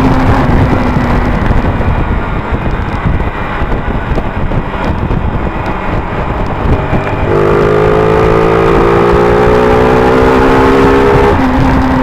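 Motorcycle engine heard from on board, with wind rushing over the microphone. The engine is held back for the first half. From about seven seconds in it accelerates, its pitch climbing steadily, and then drops sharply near the end.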